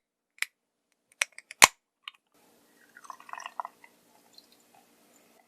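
A few sharp clicks and taps from handling a Somersby drink and a glass, then about a second of drippy liquid sounds a little past the middle.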